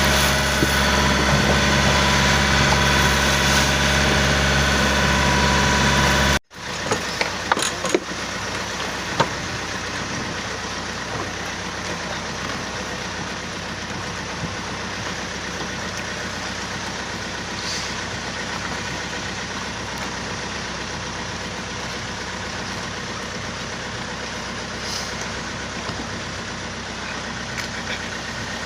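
A boat's engine running steadily and loudly. About six seconds in it cuts off abruptly, and a quieter steady hum follows, with a few knocks soon after.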